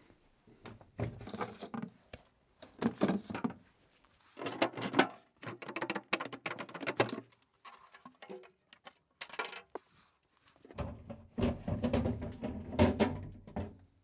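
Fridge shelves and drawers being pulled out and handled: scrapes, rattles and knocks in several short bursts, with a longer burst near the end as a drawer comes out.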